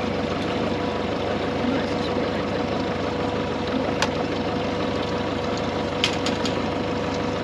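Boat motor running steadily with an even hum, with a sharp click about four seconds in and a few quick clicks about six seconds in.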